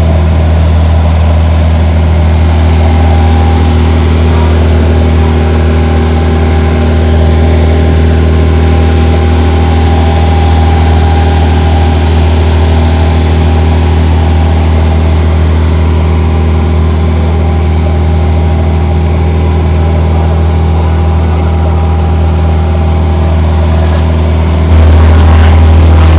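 Steady, loud drone of a big ship's engine: a deep hum with steady tones above it. It gets a little louder about a second before the end.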